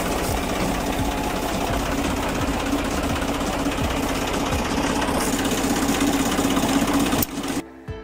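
Tractor diesel engine running close up: a loud, steady mechanical clatter over a constant low hum. It cuts off suddenly near the end, and background music takes over.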